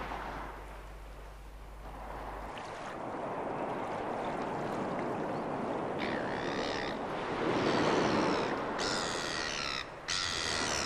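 Steady wind and water noise on the shore, with birds calling in short bursts of repeated high, wavering notes from about six seconds in.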